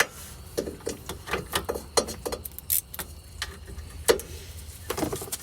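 Hand ratchet clicking in short, irregular runs, with metal tool knocks, as a bolt on the rear brake is loosened. A steady low hum runs underneath.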